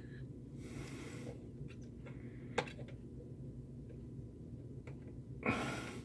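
A person breathing out heavily twice, near the start and near the end, with a single light click between, over a steady low hum.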